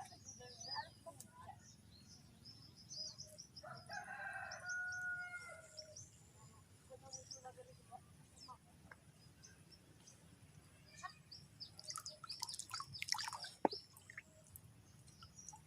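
A rooster crows once, a single call of about two seconds starting around four seconds in, over small birds chirping. A sharp click comes near the end.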